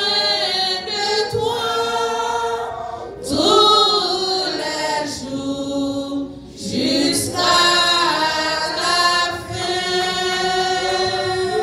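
A church congregation singing a slow hymn together, voices holding long notes, with short breaks between phrases.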